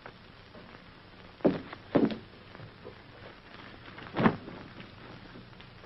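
Three dull thumps, about a second and a half in, half a second later, and again near the four-second mark, over a faint steady hiss.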